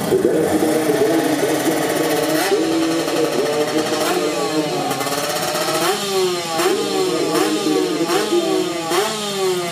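Two-stroke Kawasaki Ninja 155 cc drag-race motorcycle engine idling and blipped at the start line, each throttle blip a sharp rise in pitch that falls away again. The blips come faster in the second half, about one every two-thirds of a second, keeping the engine clean and ready for the launch.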